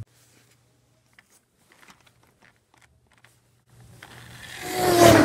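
Near silence with a few faint ticks, then a rustling handling noise that swells up and peaks near the end, as plush toys and the toy car they sit on are moved close to the microphone.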